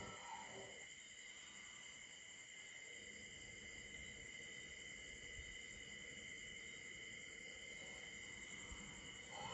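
Faint, steady chorus of night insects, crickets, singing in two high even tones.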